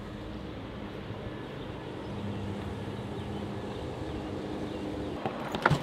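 Outdoor background noise with a steady low hum, and a few sharp clicks near the end.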